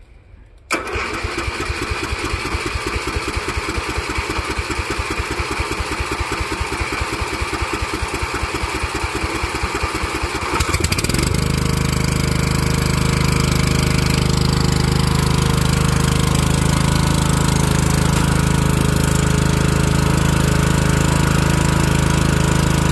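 Lawn tractor's small engine cranked by its starter for about ten seconds, a fast even pulsing, then catching and settling into a steady run.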